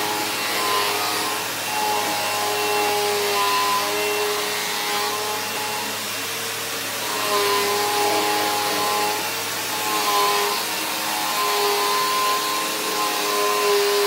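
Upright bagless vacuum cleaner running steadily on a hardwood floor: a continuous rushing motor noise with a steady whine whose pitch and strength waver a little as it is pushed back and forth.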